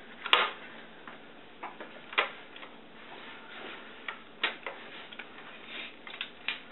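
Scattered light knocks and clicks from hands and a damp cloth handling a 16mm film projector's casing while it is wiped down, the sharpest knock about a third of a second in.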